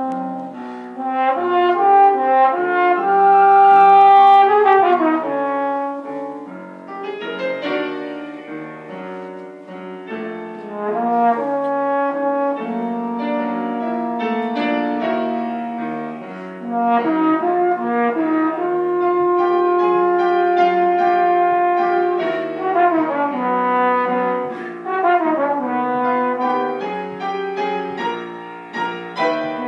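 Trombone with piano accompaniment: the trombone holds long notes and plays several quick falling runs while the piano accompanies.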